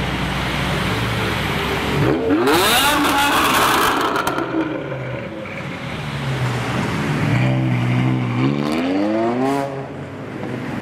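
Car engines running and revving hard as cars pull away: a steady low engine drone, a sharp rising rev about two seconds in, then the straight-piped BMW M5's V10 accelerating away from about seven seconds in, its pitch climbing steadily for two to three seconds before it drops off.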